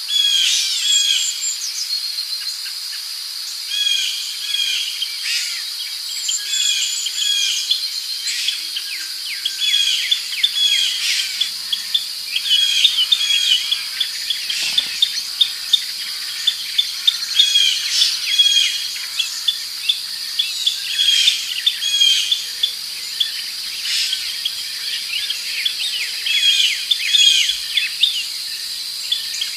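Forest birdsong: short chirping phrases repeated throughout, over a steady high-pitched insect drone.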